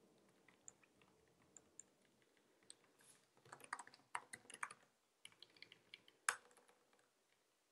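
Faint typing on a computer keyboard: a few scattered keystrokes, then a quick run of keystrokes about halfway through, and a few more after it.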